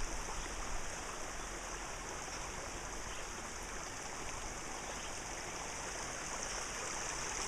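Waterfall: a steady, unbroken rush of falling water, hissy and bright, with no changes.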